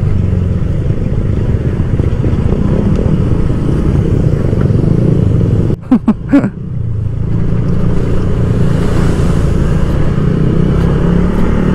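Honda Click 150i single-cylinder scooter riding slowly over a rough gravel road: steady engine and road rumble mixed with wind on the microphone. About six seconds in the sound drops out briefly and three short, sharp knocks follow close together.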